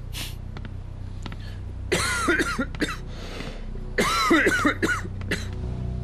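A man coughing in two fits, one about two seconds in and one about four seconds in, each a quick run of coughs.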